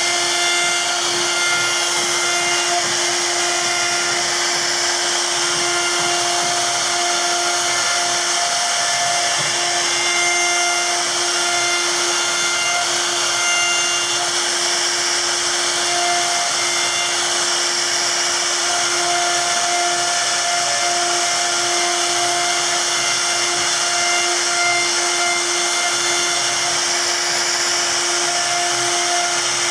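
CNC router spindle running with a steady high whine while its bit carves a relief pattern into a wooden panel, with an even hiss from the cutter chipping the wood.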